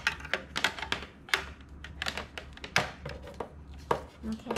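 Irregular light clicks and knocks of hands handling a small plastic desk fan and its power cord on a tabletop, several a second, over a faint steady low hum.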